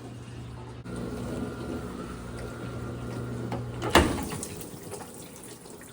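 Water running with a steady low pump-like hum, which stops with a sharp knock about four seconds in.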